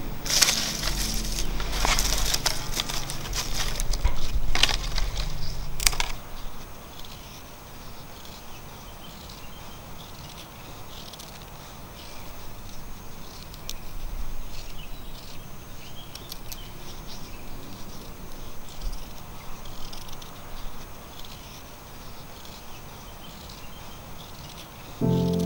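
Loud rustling and crackling of dry leaves and twigs being handled or trodden on. About six seconds in it stops, leaving quieter tropical forest ambience with a steady high insect drone.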